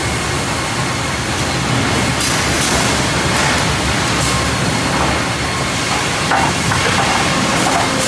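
Cleereman Optimized Edger line running in a sawmill: a loud, steady din of machinery, infeed rolls and chain conveyors, with occasional knocks from the boards being handled.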